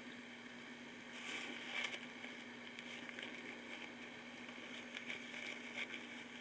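Faint wet rubbing and handling noises from fingers smearing brake fluid around inside a brake wheel cylinder, a little louder about a second in, over a steady low hum.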